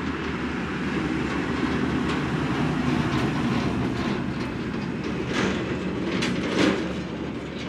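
Tractors driving past close by: engines running with the rattling and clattering of their towed implements, and a few louder clanks near the end.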